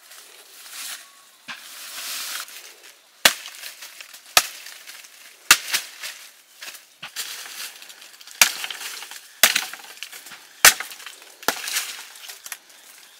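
Chopping with a blade on wood: about eight sharp strikes, roughly a second apart, starting about three seconds in, with softer rustling before them.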